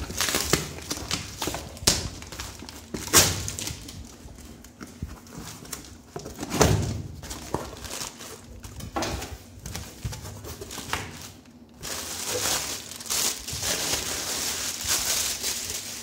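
A cardboard shipping box being opened by hand: packing tape slit and torn, flaps pulled back and the cardboard rustled, with scattered knocks and scrapes. A longer stretch of rustling comes near the end.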